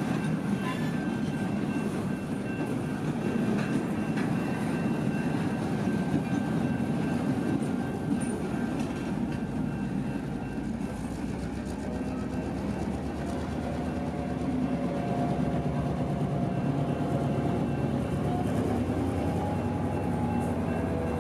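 EMD SD7 locomotive's 16-cylinder 567 diesel engine running steadily as it switches cars, its pitch lifting slightly in the second half.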